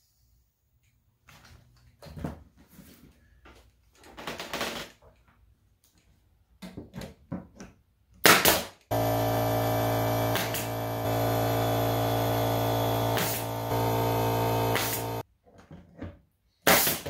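Pneumatic 1/4-inch crown stapler firing staples into a drawer bottom: several sharp shots, the loudest about eight seconds in and another near the end. In between, a steady machine hum starts abruptly, runs for about six seconds and cuts off suddenly.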